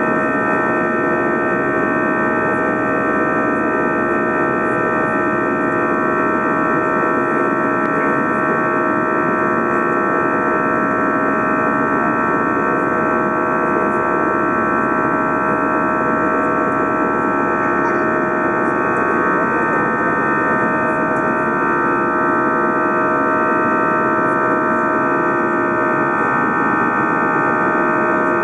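Airbus A320 engines at climb power, heard from inside the passenger cabin: a steady, loud drone with several held tones over a rushing noise.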